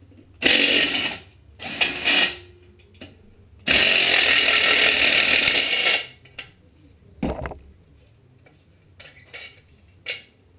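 Cordless power driver spinning out the muffler bolts on a Tecumseh HM80 small engine: two short runs, then one held for about two seconds. A single knock follows a little after seven seconds in, then a few light clicks as the muffler comes off.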